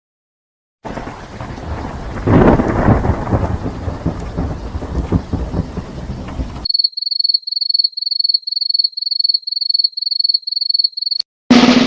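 Thunderstorm sound effect: steady rain with a loud thunder clap about a second after it starts. Then it cuts off suddenly to a high electronic beeping, about three beeps a second.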